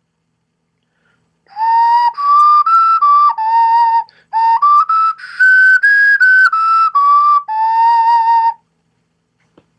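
3D-printed resin replica of a ceramic ocarina playing a short run of clear, whistle-like notes in two phrases, starting about one and a half seconds in. The first phrase steps up a few notes and back down. The second climbs higher and steps back down to the same low note.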